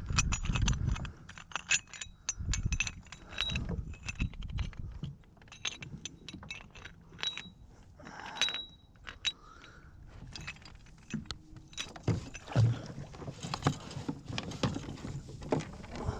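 Irregular clicks, knocks and light metallic jingling of gear being handled on a kayak, with low rumbling bumps between them.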